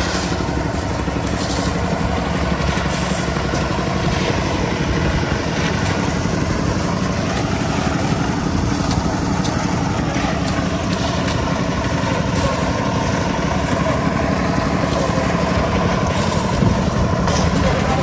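Small petrol engine of concrete-pouring equipment running steadily at an even speed during a concrete slab pour.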